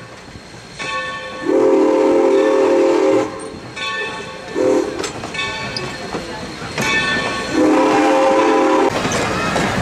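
Locomotive sounding its multi-note signal in three blasts, long, short, then long. Near the end a steady rushing noise takes over.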